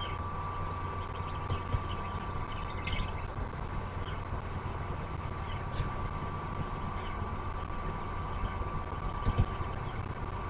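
A steady low hum with a faint, held high tone, like distant machinery, and a few faint short chirps or clicks scattered through.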